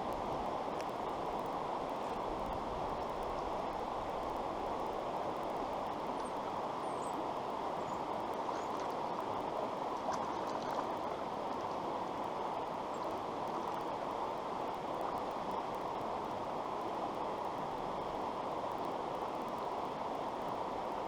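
Creek water rushing steadily, with a few faint high chirps around the middle.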